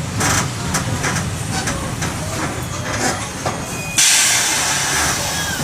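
Mercedes-Benz OM-924 LA four-cylinder in-line diesel of a city bus running steadily, then about four seconds in a sudden loud hiss of compressed air from the bus's air system that lasts about a second and a half.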